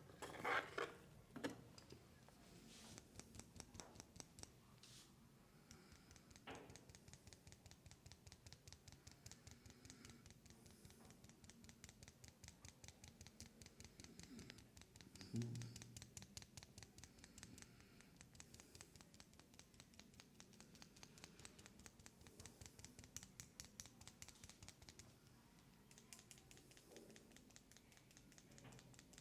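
Fingertips scratching quickly through hair on the scalp during a head massage: a faint, steady run of soft scratches, several a second. A louder rustle or knock sounds just after the start and again about halfway through.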